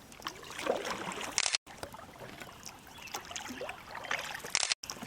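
Water trickling and lapping around a paddled canoe, with small splashes from the paddle strokes. The sound cuts out completely for an instant twice.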